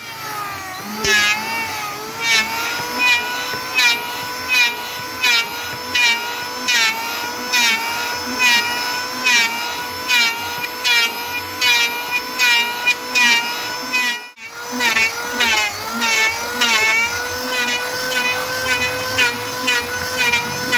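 Electric hand planer running with a steady motor whine. It bites into the board in repeated strokes, about one every three-quarters of a second, as it shaves the old finish off the wood. The sound drops out briefly about two-thirds of the way through.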